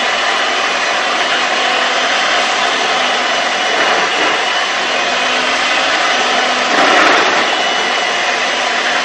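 Loud, steady rushing noise with a faint hum in it, swelling briefly about seven seconds in.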